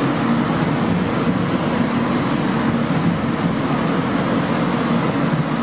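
Stuttgart S-Bahn electric multiple-unit train running along the platform in an underground station: a steady rumble of wheels and running gear with a faint, even electric hum.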